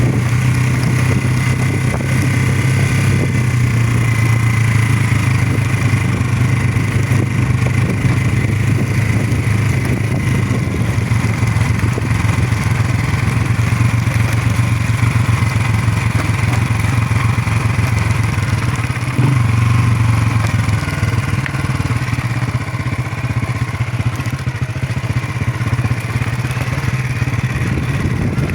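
Motorcycle engine running steadily while riding, with a brief change in the engine note about two-thirds of the way through.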